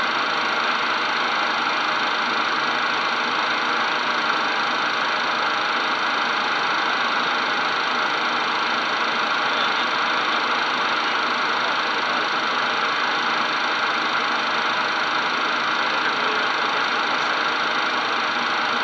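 Steady cockpit noise of a Cessna Citation twin-turbofan business jet on approach: a constant rush of airflow with a thin high engine whine, unchanging throughout.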